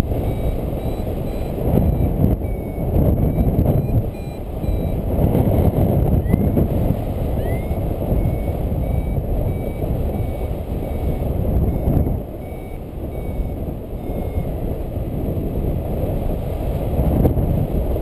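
Wind rushing over the microphone of a paraglider in flight, swelling and easing, with a variometer's short high beeps in runs underneath: the beeping of a glider climbing as it circles in a thermal.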